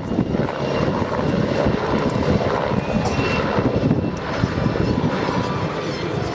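PZL W-3A Sokol helicopter flying overhead: the rapid chop of its main rotor, with a faint whine from its twin turboshaft engines.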